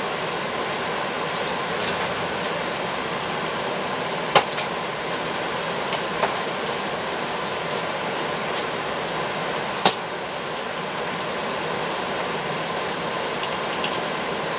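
Steady fan-like background noise, with two sharp knocks about four and ten seconds in and a lighter tap between them as a child handles boxes and wrapped presents.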